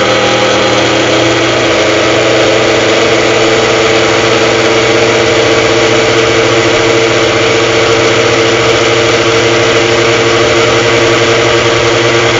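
Elite personal blender's motor running steadily at full speed, blending fruit and juice into a smoothie; the motor runs only while the cup is held pressed down and twisted onto the base.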